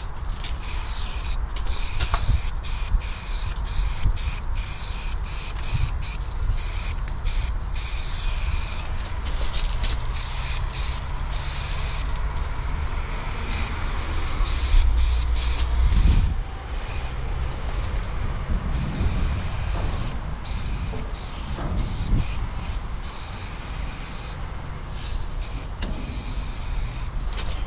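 Aerosol spray-paint cans hissing in repeated bursts, some brief and some lasting a couple of seconds, most of them in the first half and fewer later, over a steady low rumble.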